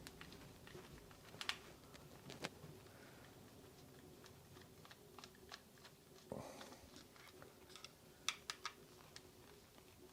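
Scattered small clicks and taps of a screwdriver working screws out of a small plastic robot toy's housing, with a quick run of several clicks near the end and a soft thud in the middle.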